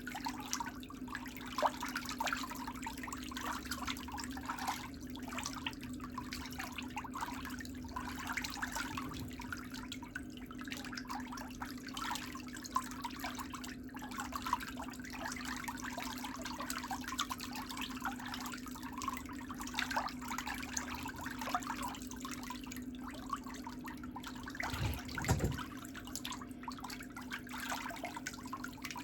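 Water trickling and bubbling with a steady low hum beneath, and a brief low thump near the end.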